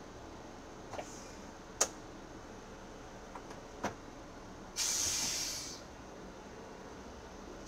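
A burst of compressed air hissing from a city bus's pneumatic system, starting about five seconds in and fading over about a second. It follows a few sharp clicks in the driver's cab, over a steady background hum.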